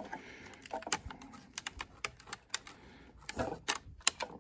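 Irregular faint plastic clicks and ticks from a multi-wire harness connector on a battery's BMS module, worked at by a gloved hand to unplug it.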